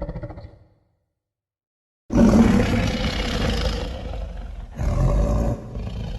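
A cartoon dragon creature's roar sound effect, bursting in suddenly about two seconds in after a short silence and going on rough and loud, dipping briefly then surging again. In the first moment, the tail of a previous rumbling effect fades out.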